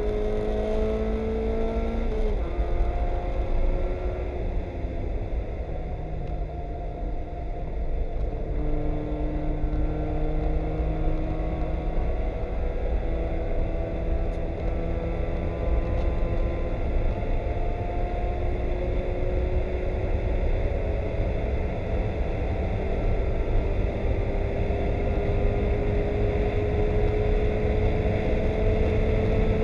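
Mazda Miata race car's four-cylinder engine at speed, heard from inside the cabin. Its note drops sharply about two seconds in, then climbs slowly through long pulls, over a heavy low rumble.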